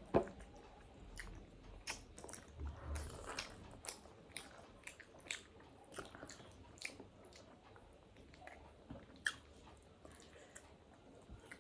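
Mouth sounds of someone eating chicken momo: biting and chewing, heard as faint, scattered short clicks.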